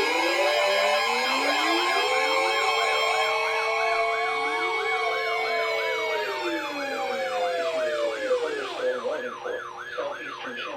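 Several electronic sirens sounding together: a fast yelp warbling about three times a second over slow wails that rise and fall, with steady tones underneath. It thins out and gets quieter near the end.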